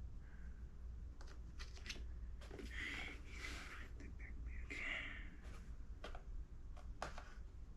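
Faint handling noise of small tools and parts: scattered sharp clicks and short stretches of rustling and scraping.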